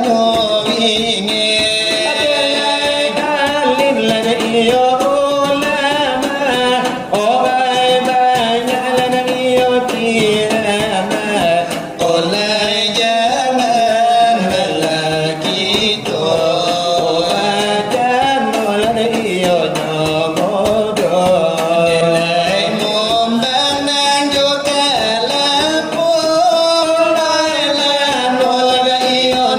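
Selawat dulang: singers chanting a Minangkabau devotional song in a melismatic, Middle-Eastern-tinged melody, accompanied by hand-beaten percussion on a brass tray (dulang).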